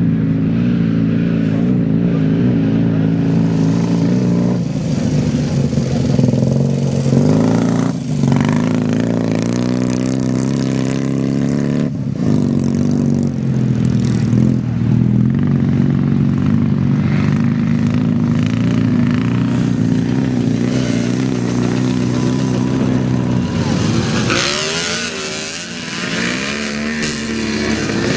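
Engines of vintage motocross sidecar outfits racing on a dirt track: a steady engine drone whose pitch shifts as the revs change. In the last few seconds the revs rise and fall sharply as two outfits pass close.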